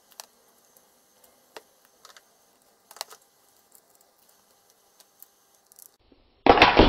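A few small, sharp clicks of a screwdriver working on the screws and frame of a vintage instrument. Near the end comes a sudden loud metallic clatter that rings on and fades.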